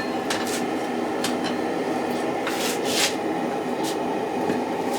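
Steady rushing of a gas forge burner, with a few short metallic clicks and scrapes scattered through it, the loudest pair about halfway through.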